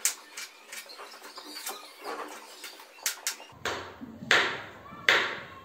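Kitchen knife tapping through soft fruit onto a plastic cutting board as banana and kiwi are cut into small pieces: a string of short, sharp clicks, then a few louder knocks near the end.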